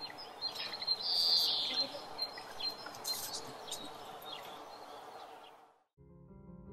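Outdoor background with birds chirping, the brightest chirping about a second in. The ambience fades out just before the end, and soft music with held notes starts.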